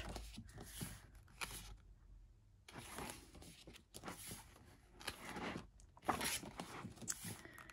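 Pages of an album photo book being turned and pressed flat by hand: soft paper rustling and sliding in several short separate strokes, with a brief pause about two seconds in.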